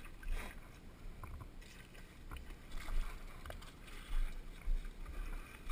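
Booted feet splashing and squelching through a shallow muddy puddle in irregular steps, with low rumbles on the helmet-camera microphone.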